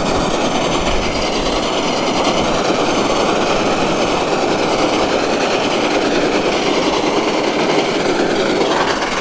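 Case IH 7088 Axial-Flow combine running close by as it cuts, with its cutter bar banging away: the joint at the end of the knife has broken and the knife end is knocking behind its shield. A loud, steady mechanical clatter, not a healthy sound at all.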